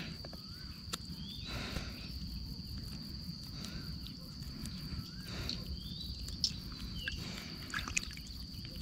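Insects chirring in one steady high-pitched tone, with a few faint clicks and small splashes from hands working a fish out of a fine gill net in the water.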